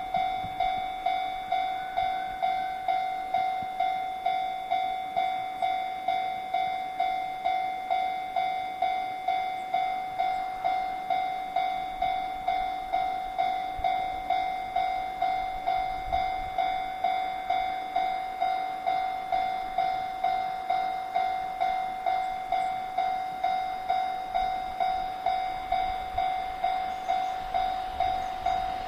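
Japanese railway level crossing's electronic warning bell ringing steadily, about two dings a second, signalling that a train is approaching.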